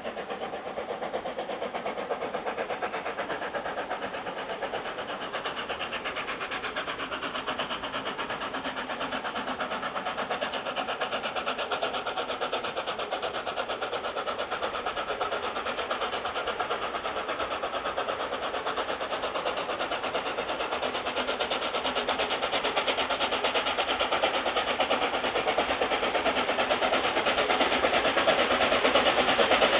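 A steam locomotive working a train, its exhaust beats and running gear a steady rapid rhythm that grows louder as it approaches.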